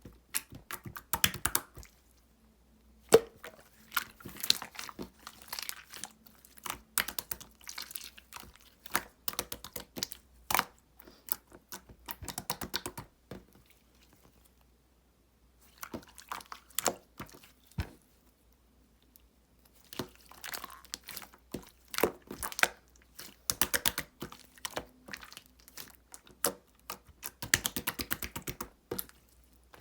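Opaque slime being squeezed, folded and pressed by hand, giving quick runs of crackling clicks and pops from trapped air, with a couple of short pauses.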